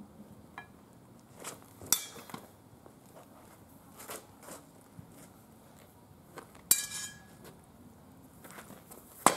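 Steel swords clashing in a sword-and-buckler bout: three sharp metallic clashes, the first two ringing briefly and the last at the very end, with fainter taps in between.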